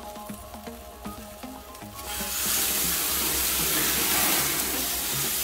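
Butterflied chicken sizzling loudly on a hot gas grill's grate. The sizzle starts suddenly about two seconds in, as the chicken is flipped over with tongs and the basting flares on the burner. Background music plays under it.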